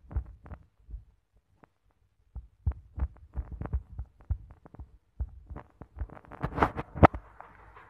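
Typing on a smartphone's touchscreen keyboard: quick, irregular taps, a few a second, with a pause of about a second and a half near the start. The taps are loudest near the end.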